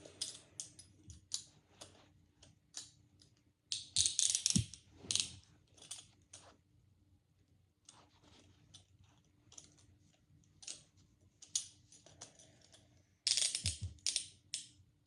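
Metal handcuffs being worked on a wrist: scattered single ratchet clicks as the cuff is closed, with two louder bursts of metal rattling, about four seconds in and near the end.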